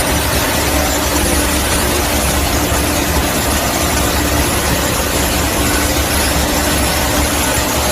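Coolant-tank chip cleaner running steadily: an even motor and suction noise with a low hum and a steady tone.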